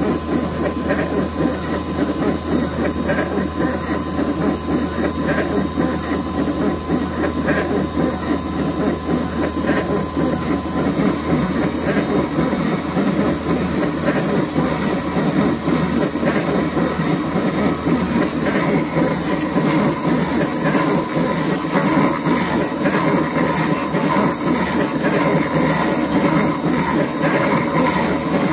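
Spindle of a CNC-converted Harbor Freight X2 mini mill running at 4500 RPM while a 3/8-inch three-flute carbide end mill bores a half-inch hole in an aluminium block: a steady, loud whir of the spindle mixed with the hissing rasp of the cutter throwing chips. A faint steady tone sounds during the first ten seconds or so, then fades.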